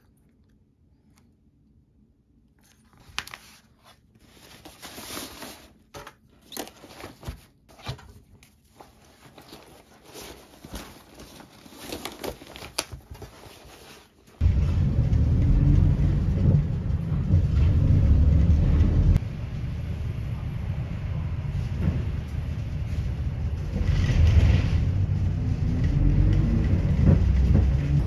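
Light clicks, taps and plastic rustling as small items are handled on a desk. About halfway through, a sudden cut to a loud, steady low rumble, like the inside of a moving bus.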